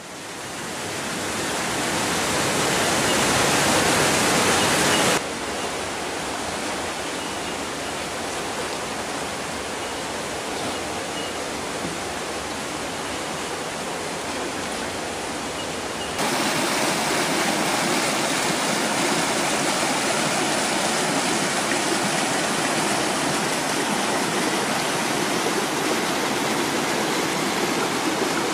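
Flowing river water rushing over rocks, a steady rush that fades in at the start, drops suddenly about five seconds in and grows louder again about sixteen seconds in.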